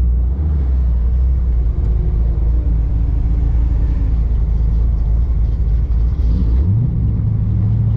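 Car engine running at low speed with a steady low rumble. Its pitch rises about two-thirds of the way through as it picks up revs, then holds there.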